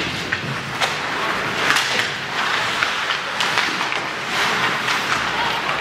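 Ice hockey play: skate blades scraping and carving the ice, with scattered sharp clacks of sticks and puck.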